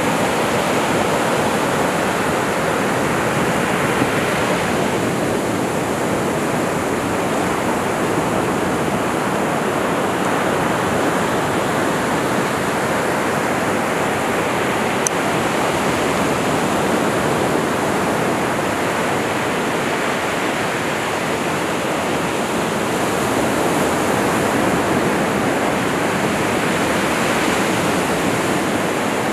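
Ocean surf breaking and washing up a sandy beach: a steady rush of water that swells and eases every several seconds.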